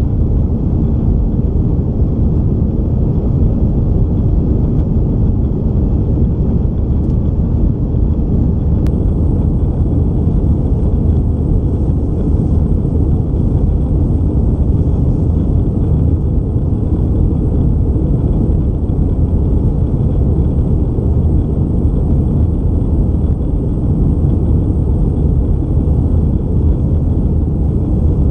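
Airbus A319 cabin noise during the climb after takeoff: the steady low rumble of the jet engines and the airflow past the fuselage, heard from a window seat.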